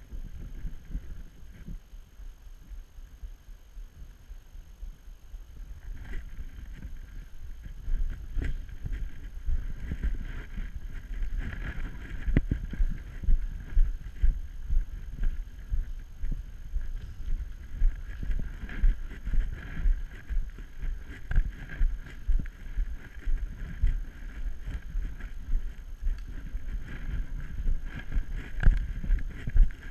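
Wind rumbling on the microphone. From about a quarter of the way in it is joined by a regular thudding, roughly one and a half beats a second, with a few sharp clicks.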